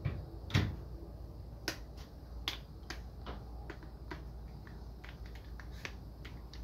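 A clamp being fitted and tightened onto a small plastic speaker cube: a loud knock about half a second in, then a run of sharp, irregular clicks.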